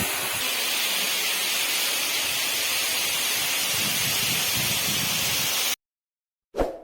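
Steady rushing hiss of falling water from a waterfall, which cuts off suddenly about six seconds in. A brief loud sound follows near the end.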